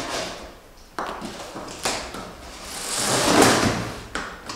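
Brown packing tape being peeled and ripped off a large cardboard box: short tearing sounds about one and two seconds in, then a longer rip that grows louder and peaks near the end.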